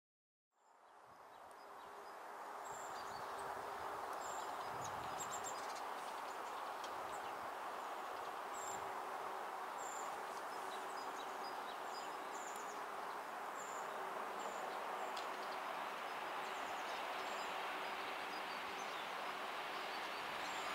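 Outdoor ambience: a steady wash of distant noise with a faint hum, and small birds chirping in short high notes every second or two. It fades in about half a second in and swells slightly near the end as a distant train approaches.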